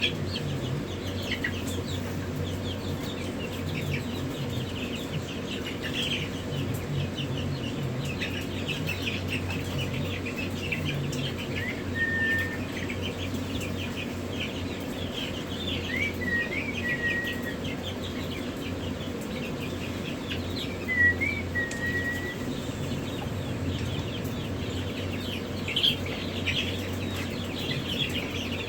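Many baby chicks peeping continuously, short high calls overlapping, with a few longer drawn-out peeps now and then. A steady low hum runs underneath.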